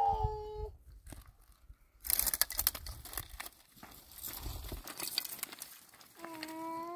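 Dry twigs and brush crackling and snapping in a dense burst that starts about two seconds in and lasts about three seconds.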